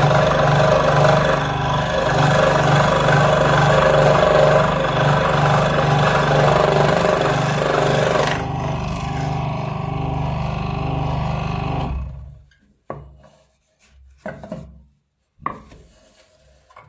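An electric power tool running with a steady low hum while an abrasive rubs hard against a workpiece; the rubbing stops about eight seconds in, the motor runs on alone and shuts off about four seconds later, followed by a few short knocks.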